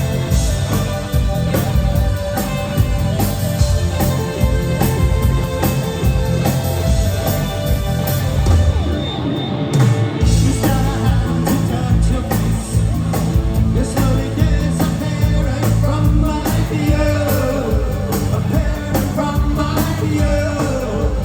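A live new wave rock band plays with sung vocals, guitar, bass and drums, recorded loud from the audience. About nine seconds in the high end drops out for about a second, then the full band comes back.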